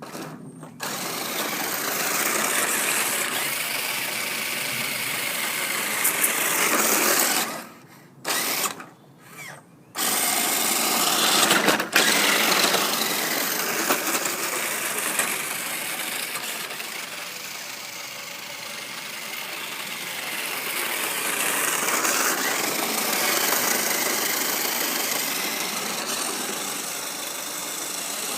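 Toy RC car's electric motor and gears whining loudly at speed, the pitch rising and falling as it speeds up and slows. It cuts out twice briefly about eight seconds in, then runs on.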